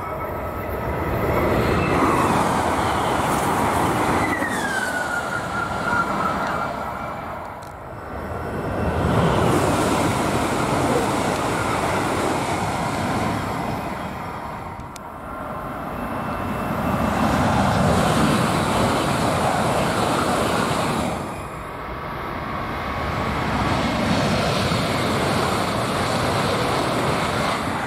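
High-speed trains passing at speed, one after another: each pass is a rising and fading rush of air and wheel noise, and one carries a falling whine as it goes by. The last pass is a Renfe AVE high-speed train.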